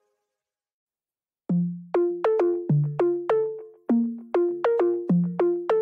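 Background music. After about a second and a half of silence, a synthesizer keyboard tune starts: a quick run of struck notes, each fading fast.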